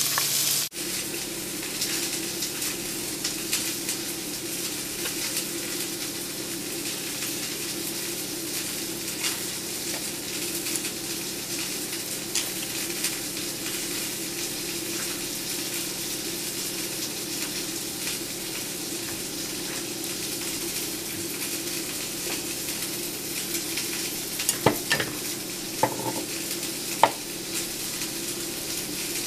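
Steak sizzling steadily in a frying pan, with a few sharp clicks near the end as a spoon scoops avocado flesh.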